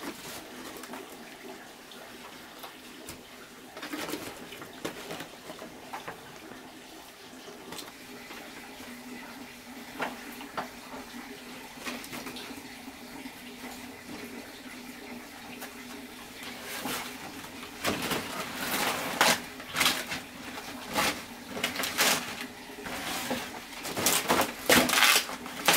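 Broad green leaves rustling and crackling as they are handled and folded down over the load in a woven plastic basket, growing louder and busier in the second half, over a low steady hum.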